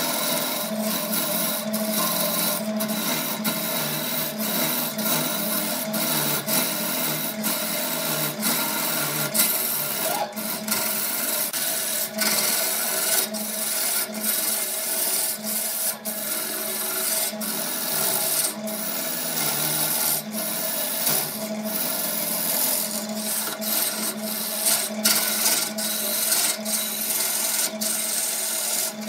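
Wood lathe running while a hand-held turning tool cuts into the spinning wooden blank: a steady scraping hiss of the cut over the lathe's steady hum, broken by many brief gaps.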